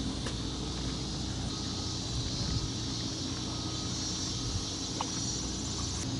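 Steady outdoor ambience: low wind rumble on the microphone with a high, even hiss and a faint tick or two.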